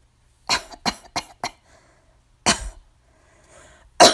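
A woman coughing: a quick run of four short coughs, then a single longer cough about two and a half seconds in, and another cough starting right at the end.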